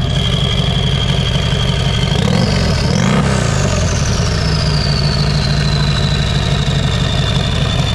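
Turbocharged cruiser motorcycle engine idling, revved once about two to three seconds in. A high whine climbs with the rev, then winds down slowly over several seconds as the turbo spools up and down.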